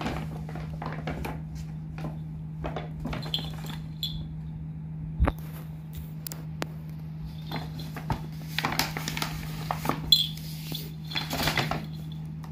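A cat scrambling about inside a paper shopping bag: the paper crackles and rustles again and again, and the small bell on its collar jingles now and then. There is a thump about five seconds in, over a steady low hum.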